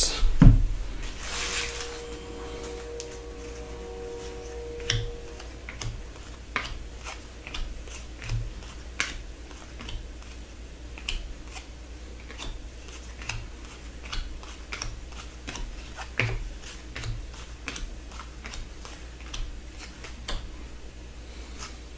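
Trading cards being handled and sorted on a table: a short rustle about a second in, then scattered light clicks and taps as the cards are picked up and set down.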